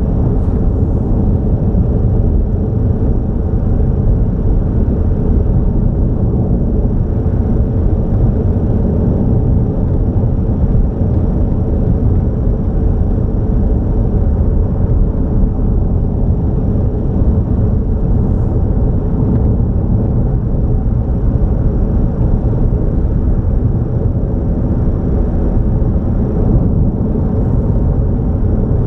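Car driving steadily at highway speed: an even rumble of engine and tyre noise with no change in pace.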